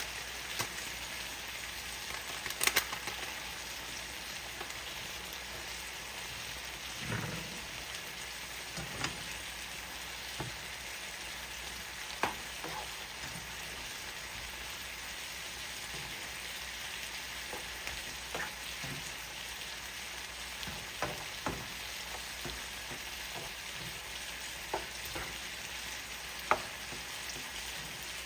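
Chicken and vegetables sizzling steadily in oil in a frying pan, browning, with scattered sharp clicks and knocks every few seconds.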